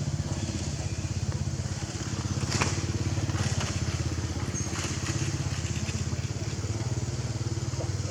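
A small engine running steadily, with a brief crackle about two and a half seconds in.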